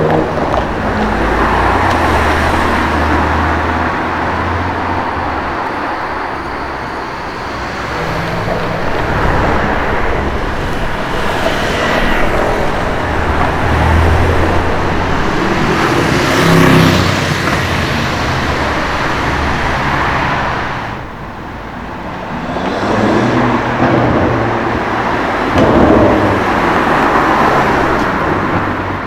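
BMW M5 F90's twin-turbo V8 engine driving and revving, its pitch rising and falling several times, with a brief drop in level about three-quarters of the way through.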